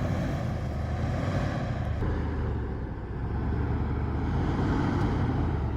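Steady low rumble of a motor vehicle running, with a haze of road or wind noise over it.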